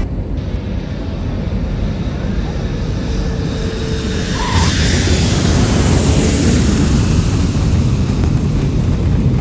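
Steady rumble and rushing noise of a moving vehicle, growing louder and brighter about halfway through.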